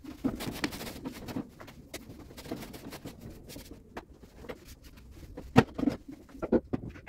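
Handling noise as a metal wire-mesh cart is cleaned. A towel rubs over the mesh, then plastic bottles are lifted and set down with several sharp knocks in the second half.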